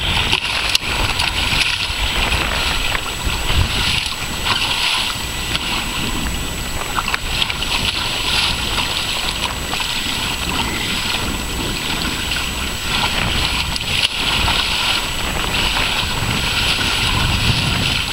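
Wind buffeting the microphone and choppy water splashing and rushing against the hull of a small sailing canoe under way, a steady rush that swells and fades with the waves.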